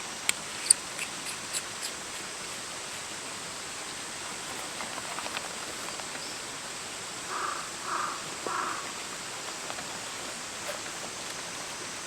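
Steady outdoor hiss with a few sharp clicks in the first two seconds, then a crow cawing three times about seven to nine seconds in.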